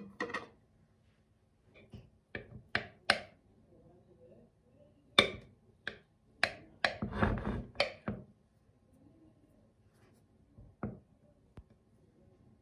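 Kitchen knife tapping and scraping against a metal tray while a tiramisu is sliced: about ten sharp clinks and knocks over the first eight seconds, a longer scraping stretch around seven seconds in, and one last tap near the end.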